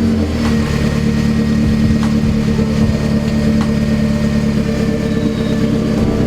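Turbocharged 2008 Honda Civic Si's four-cylinder engine idling steadily and loud, through a straight-piped exhaust with a pipe broken loose from its factory weld. At idle it sounds a bit like a tractor or a lawnmower.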